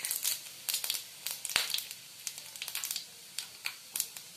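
Radhuni seeds crackling in hot oil in a kadai during tempering: scattered sharp pops over a faint sizzle that thins out after about a second.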